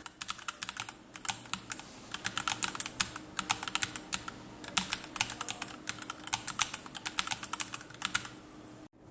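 Mechanical keyboard with Akko CS Matcha Green switches and SA-profile doubleshot PBT keycaps, keys struck in fast rhythmic flurries as in a rhythm game. There are dense runs of clacky keypresses with short gaps between bursts, and the sound cuts off abruptly near the end.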